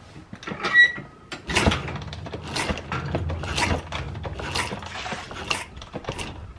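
A pit bike's small single-cylinder four-stroke engine is turned over by its kickstarter to check compression after the valves and cam timing were reset. There is a sharp metallic clink about a second in, then a stroke with a push of air about once a second, six or so in all, over a low rumble. Compression has come back.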